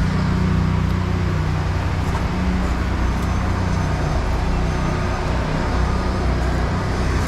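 Car engine and road noise heard from inside the moving vehicle's cabin, a steady low hum.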